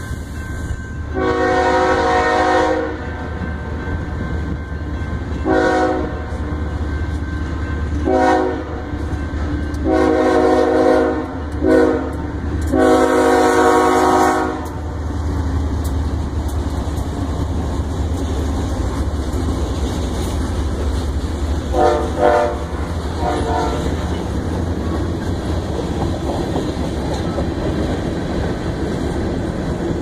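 BNSF freight locomotive's Nathan K5HLL five-chime air horn blowing a horn show of long and short blasts over the first fifteen seconds, ending on a long one, then two short toots near the middle. Under it the diesel locomotives and covered hopper cars rumble past, wheels clicking over the rail joints.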